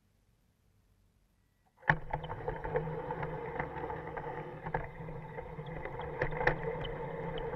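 LGB G-scale model train, a small locomotive pulling loaded skip wagons, starting up suddenly about two seconds in and rolling along garden track. A steady motor-and-gear whine and wheel rumble with many irregular clicks of the wheels over the rail joints, heard up close from one of the wagons.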